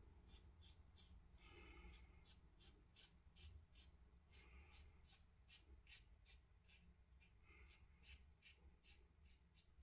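Faint scraping of a Timeless bronze safety razor cutting stubble through shaving lather on the chin and neck, in short quick strokes about three a second, during the first pass.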